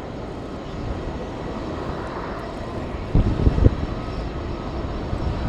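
Jet airliner engines running with a steady roar and a faint thin whine, with wind buffeting the microphone in low gusts about three seconds in.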